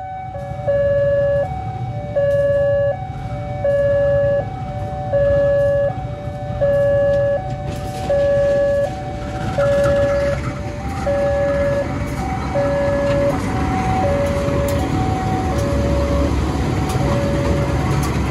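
Level-crossing warning alarm sounding a two-tone signal that alternates between a higher and a lower note about every three-quarters of a second, warning that a train is coming. From about 9 s in, a diesel locomotive hauling passenger coaches runs past the crossing, its engine and wheels growing louder as the alarm fades under them.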